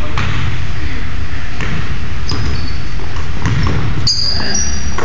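Basketball bouncing on a hardwood gym floor as it is dribbled, several separate thuds, with a few short high sneaker squeaks on the floor over a steady low rumble.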